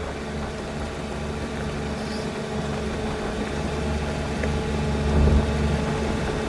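Vehicle engine running steadily at low speed, a low hum that swells a little about five seconds in.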